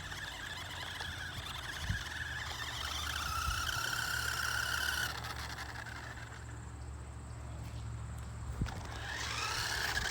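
Whine of a toy remote-control side-by-side's electric motor driving, over a steady low hum. The whine grows louder and rises a little about three seconds in, then cuts off suddenly about two seconds later.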